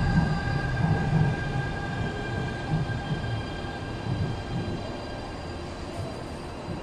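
Guangzhou Metro Line 4 L5-type (SFM37) linear-motor train pulling into the platform. The cars rumble as they roll past, under a steady high whine from its IGBT-VVVF inverter drive. The sound grows quieter as the train slows.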